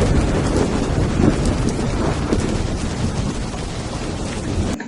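Added rain sound effect: heavy, steady rain with low rumbling thunder, which cuts off abruptly near the end.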